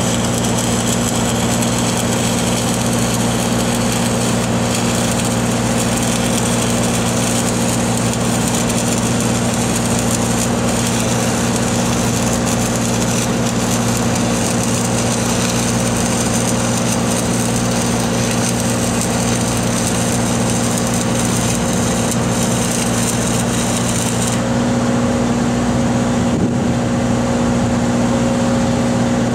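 Stick (SMAW) arc welding on steel pipe: a steady crackling hiss over an engine-driven welding machine running steadily. The crackle stops suddenly about five seconds before the end, leaving the welder's engine running.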